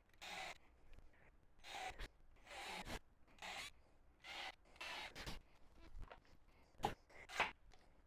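Faint rubbing or scraping strokes, about ten in a row at an uneven pace of roughly one a second or a little faster, with two sharper, shorter ones near the end.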